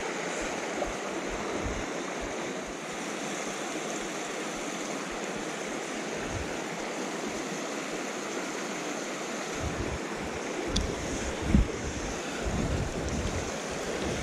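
Small rocky moorland stream running over stones: a steady rush of water. A few low bumps on the microphone come near the end.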